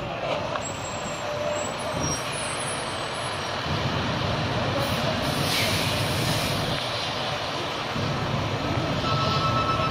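Fire truck's diesel engine idling with a steady low rumble, with a hiss of air about halfway through. A steady electronic alarm tone starts near the end.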